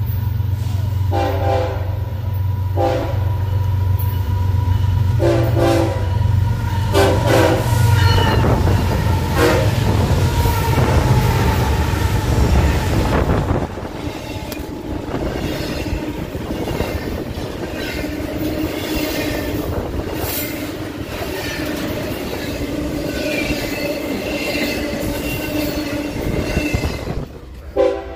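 Freight train passing close by: the locomotives' air horn sounds four short blasts in the first eight seconds over their deep diesel engine rumble, which drops away about halfway through as the locomotives go past. Double-stack intermodal cars then roll by with steady wheel-on-rail noise and a faint wheel squeal, and another train's horn blasts briefly at the very end.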